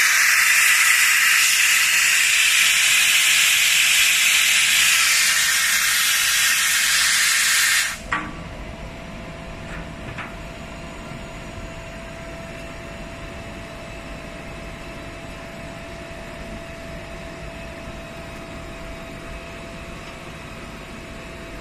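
Plasma cutting machine hissing loudly and steadily, then cutting off abruptly about eight seconds in. A quieter steady hum with a faint whine is left, with a couple of light knocks just after the cutoff.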